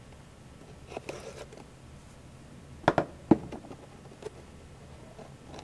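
Hands working open a cardboard figure box with a small knife: a few soft scrapes and taps, with the sharpest ones about three seconds in.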